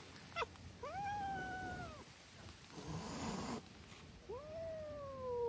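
Cat meowing: two long, drawn-out meows a few seconds apart, the second sliding slowly down in pitch.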